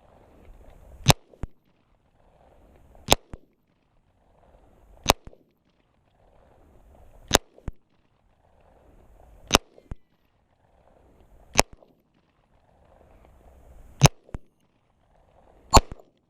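9mm pistol fired at a slow steady pace: eight sharp shots about two seconds apart, each followed shortly by a fainter second crack.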